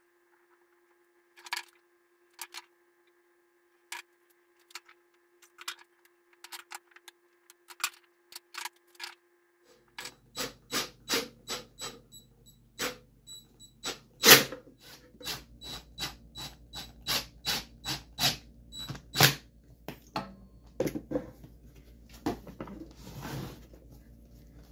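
Scattered light clicks and taps of hand work on a bench grinder's jig base. About ten seconds in, a quicker run of sharp clicks, two or three a second, starts over a low hum as screws are driven into the base with a cordless drill-driver.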